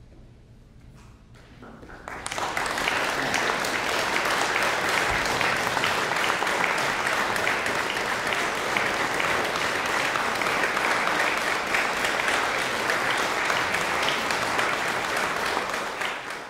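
Audience applauding after a couple of seconds of quiet, starting about two seconds in, holding steady, and beginning to die away at the very end.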